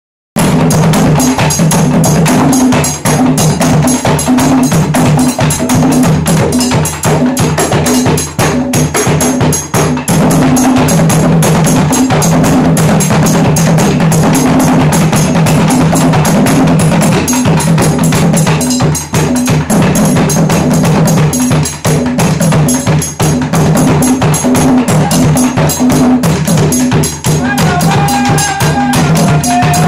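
Afro-Surinamese drum ensemble playing a fast, steady groove: several skin-headed hand drums struck by hand, with a wooden box beaten with two sticks (kwakwa-style) keeping a rapid clicking time line. Near the end a voice starts to sing over the drums.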